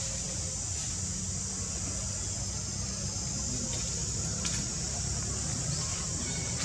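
Steady tropical-forest ambience: a continuous high-pitched insect drone over a low rumble, with a few faint clicks in the second half.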